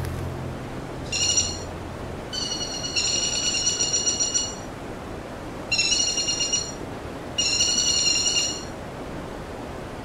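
Waterfall rushing steadily. Over it, a high trilling call at a steady pitch comes in four bursts, the longest about two seconds.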